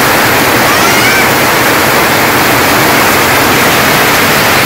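Heavy monsoon rain pouring down, a loud, steady, even hiss.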